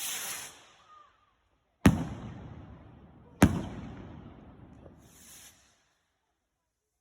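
Fireworks going off: a hissing whoosh fades out, then two loud bangs about a second and a half apart, each with a rumbling tail, and a short hiss before it goes quiet.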